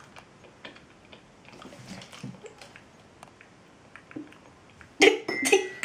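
Faint wet mouth clicks from chewing a jelly bean eaten whole, then about five seconds in a sudden loud cry of disgust with a brief high squeal in it.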